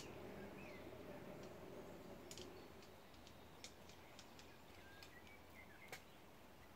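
Near silence with a faint low hum, a few short, faint chirps from small birds, and several sharp ticks, the loudest about halfway through and again near the end.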